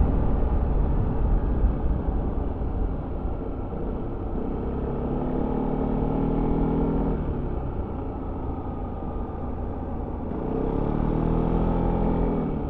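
Yamaha XMAX 300 scooter's single-cylinder engine with its stock exhaust, heard on board while riding, over a steady low rumble. The engine note swells and rises in pitch twice, about five seconds in and again near the end, then eases off.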